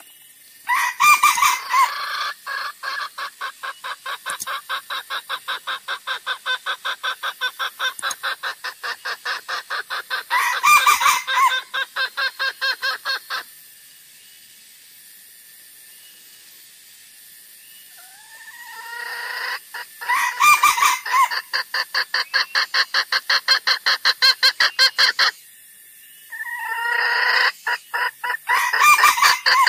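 Junglefowl calls from a bird-lure recording. Long runs of rapid clucks, about five a second, are broken by louder cackling calls. They come in three bouts separated by pauses of a few seconds with faint hiss.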